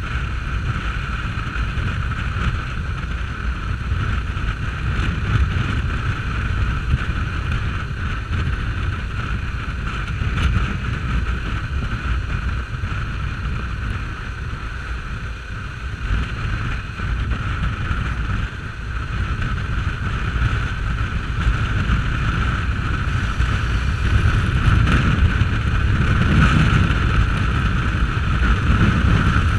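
Motorcycle riding at highway speed: engine drone under heavy wind rush on the camera's microphone, getting louder near the end.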